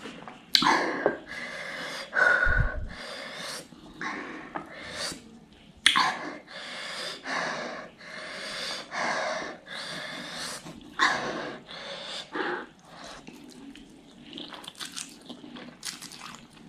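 A person breathing hard and sniffing in a string of short, noisy breaths, as from the burn of ghost pepper noodles.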